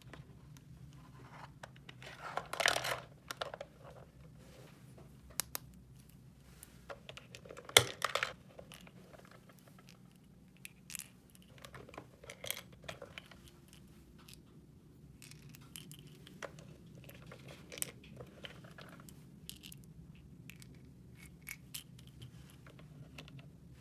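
Plastic toy packaging and small plastic toy parts being handled: crinkling and tearing, with light clicks and taps. There are two louder rustles, about two and a half seconds in and about eight seconds in.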